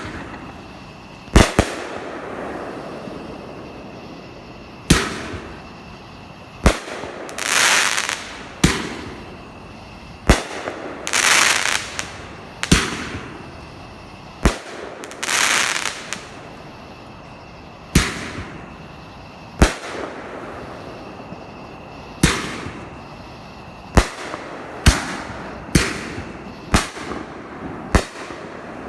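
Fireworks going off: a string of sharp bangs, one every one to three seconds, with a few longer rushing bursts lasting about a second in between.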